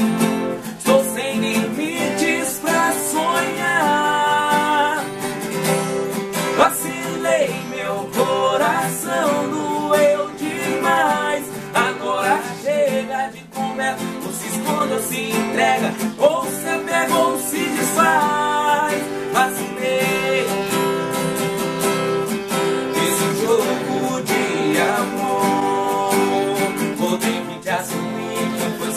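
Two acoustic guitars strummed together under male singing with wavering, bending melody lines: a sertanejo universitário song.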